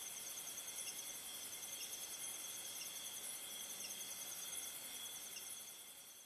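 Faint, steady chorus of insects such as crickets, a high-pitched, rapidly pulsing trill.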